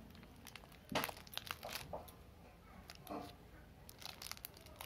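A shiny chocolate-bar wrapper crinkling as it is handled, in scattered faint crackles, with a slightly louder burst about a second in.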